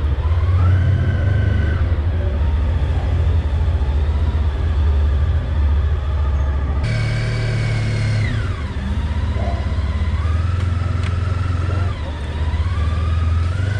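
Honda ST sport-touring motorcycle's V4 engine running under way, a heavy low rumble with a whine that rises, holds and falls several times as the bike speeds up and slows.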